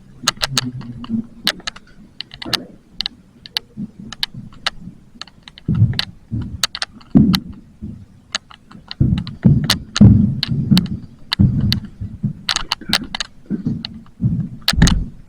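Airsoft gunfire: irregular sharp cracks and clicks of shots and BB hits, mixed with heavier thuds, the loudest about six, seven, ten and fifteen seconds in.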